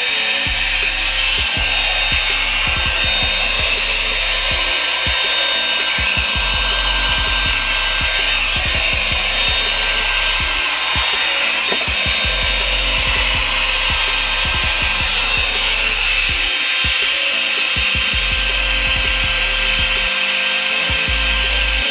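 Revlon hot-air brush blow dryer running continuously: rushing air with a steady high motor whine. Background music plays underneath.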